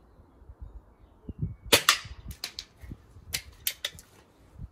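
Air gun shot: one sharp crack about a second and a half in, a second sharp report a split second after it, then several lighter clicks.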